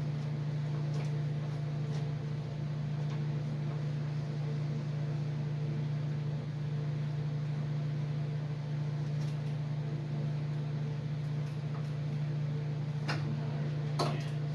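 A steady low electric hum, like a motor or fan running at constant speed, with a few faint clicks.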